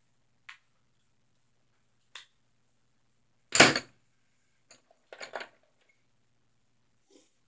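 Scattered short taps and knocks from handling a paintbrush and painting gear on a tabletop, the loudest a sharp clack about three and a half seconds in, then a quick cluster of small knocks around five seconds.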